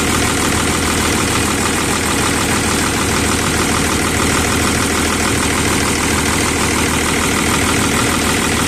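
Volvo D6D six-cylinder diesel engine of an EC210BLC excavator idling steadily. It is running again after air was bled out of the fuel system, the cause of its refusal to start.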